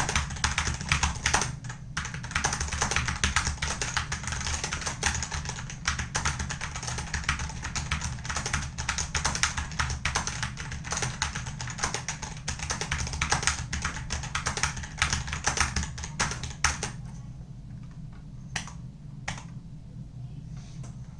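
Wooting One keyboard with Flaretech optical switches being typed on quickly in a steady stream of key clacks. About 17 seconds in it slows to a few separate keystrokes. It is in its stock state: switches not yet lubed and case not yet dampened with foam.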